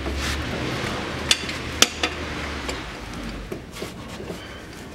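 Steel socket tool clinking against the transfer case fill plug and the metal around it while it is fitted to the plug's 1/2-inch square recess. There are a few sharp metallic clinks between about one and two seconds in, and fainter ones later, over a low steady hum.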